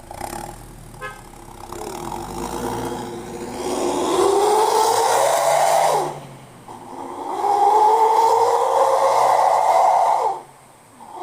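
Petrol car's engine revved through an aftermarket oval 'suos ngorok' exhaust muffler. The pitch climbs and is held high for a couple of seconds, drops sharply about six seconds in, then climbs and holds again before falling off near the end.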